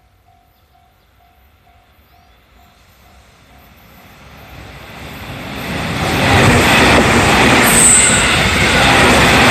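Level-crossing warning bell ringing at about three strikes a second while a 311 series electric train approaches. The train's running noise grows over several seconds until it masks the bell, and is loud from about six seconds in as the train passes. A brief high squeal comes about eight seconds in.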